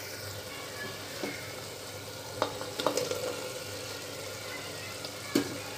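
Keema (minced mutton) sizzling in its separated oil in an open pressure cooker, with a few light knocks as cubed potatoes are dropped in.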